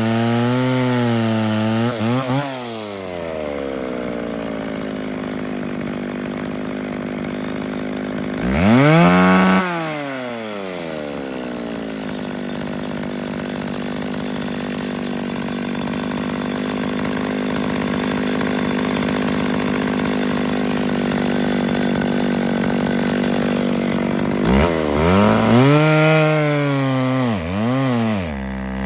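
McCulloch Pro Mac 650 two-stroke chainsaw, its carburettor ungoverned, finishing a cut through a log with its pitch wavering under load. About two and a half seconds in it drops to a steady idle, blips the throttle once near nine seconds, and near the end revs up and bites into the wood again.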